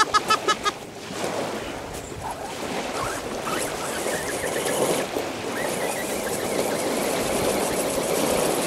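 An electric RC crawler's motor and drivetrain whining faintly and steadily as the truck creeps along a steep clay bank, over a steady wash of wind and water noise. A person laughs briefly at the very start.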